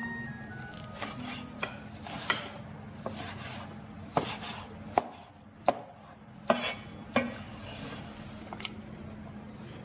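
A steel Chinese cleaver chopping garlic shoots on a plastic cutting board: about ten separate knocks, unevenly spaced, over a steady low hum.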